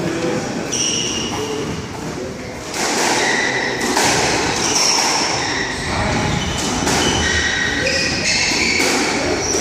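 Sneakers squeaking sharply and repeatedly on a wooden squash court floor as the players move, with a few thuds and knocks of the squash ball.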